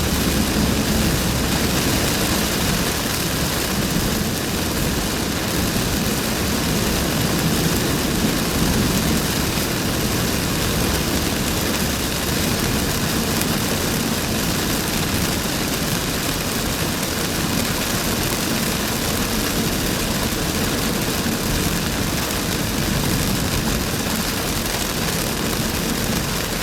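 Heavy rain and the tyre and road noise of a car driving on a flooded road, a steady even rush with no breaks.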